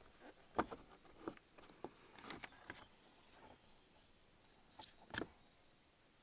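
Faint small plastic clicks and rattles from handling a car's licence plate lamp housing and its bulb holder. A few clicks come in the first three seconds, then two more about five seconds in.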